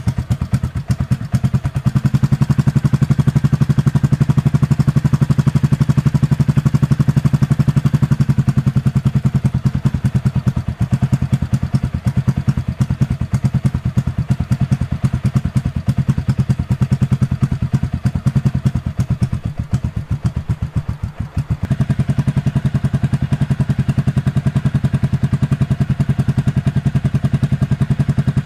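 Motorcycle engine running at a steady speed with an even, rapid exhaust beat. It grows weaker for a couple of seconds about twenty seconds in, then comes back to full strength.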